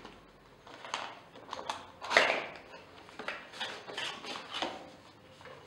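Cardboard packaging being handled: the paperboard sleeve of a beard-trimmer box sliding and scraping off the inner box, with light taps and rubs against the table. The loudest is a short scraping swish about two seconds in.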